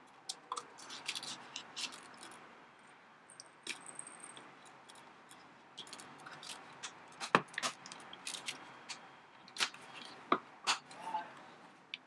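Leather multitool sheath being handled: light taps and rustles as a plastic bit holder is slid into a pocket, then several sharper clicks in the second half as the flaps are folded over and their metal press-stud snaps pushed shut.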